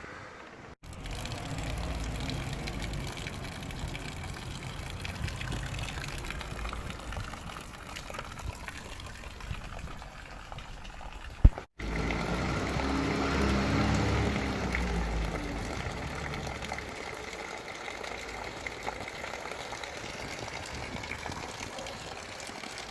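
Water running and splashing in a home-brewing mash kettle, steady throughout. It breaks off abruptly twice, once under a second in and once near the middle, right after a sharp click, and then resumes.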